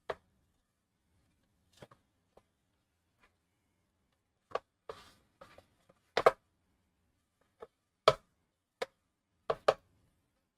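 A spoon knocking against a mixing bowl while stirring gluten flour and water into seitan dough: about a dozen short, irregular clacks, sparse at first and closer together in the second half.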